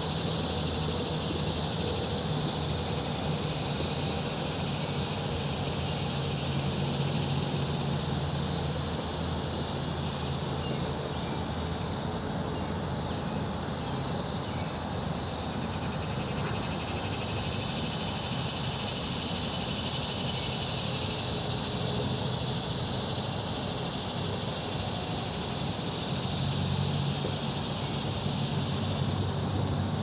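Riverside outdoor ambience: a steady high insect chorus over a low engine hum from distant traffic or a boat. The hum fades in the middle and returns near the end, and a run of short chirps repeats about twice a second for a few seconds in the middle.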